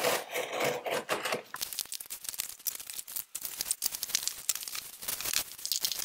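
A cardboard box being opened: a blade scraping through the packing tape, then cardboard flaps rubbing and plastic wrapping crackling as the contents are pulled out.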